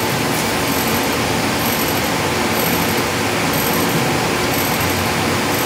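Battered chicken deep-frying in hot oil, a steady sizzle.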